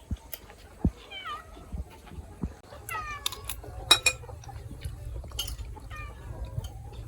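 An animal calling three times, each call short and falling in pitch, mixed with sharp knocks and clinks of kitchenware, the loudest knock about four seconds in.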